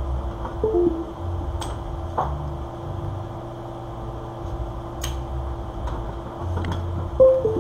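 Computer sounds over a steady hum: a few sharp mouse clicks, and two short two-note falling Windows chimes as the USB flash drive drops off and comes back, one just under a second in and a louder one near the end.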